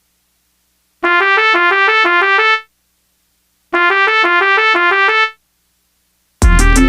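Bus 'telolet' multi-tone musical horn playing a fast melody of quickly alternating notes, twice, each phrase about a second and a half long with a pause between. Loud electronic dance music with heavy bass starts near the end.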